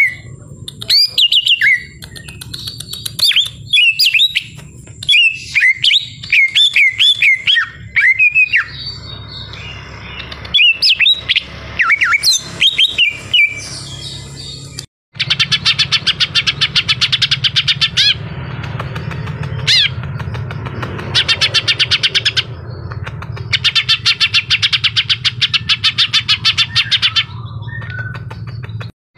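A caged greater green leafbird (cucak ijo) singing loudly. First comes a run of varied whistled phrases with swooping up-and-down notes. After a cut, the song changes to long bursts of fast chattering trills, each lasting a few seconds with short gaps between them, with one quick rising whistle in the middle.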